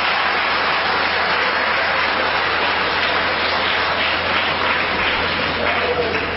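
Audience applauding steadily after the punchline of a story.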